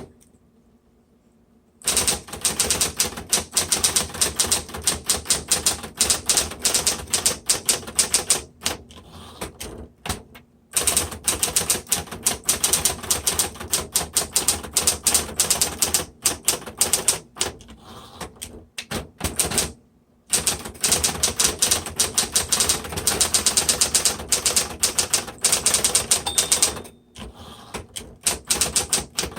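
Smith Corona Electra 110 electric typewriter being typed on quickly: dense runs of key strikes broken by short pauses about 9, 20 and 27 seconds in, over the steady hum of its electric motor.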